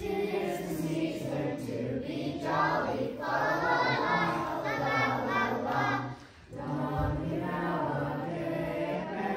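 A children's choir singing a Christmas song together, with a short break between phrases about six seconds in.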